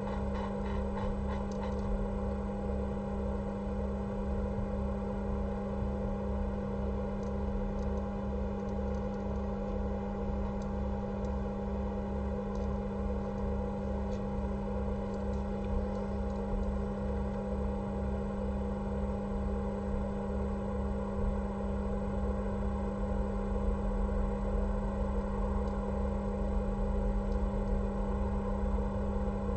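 Steady electrical hum with a low pulsing throb underneath, and a few faint clicks.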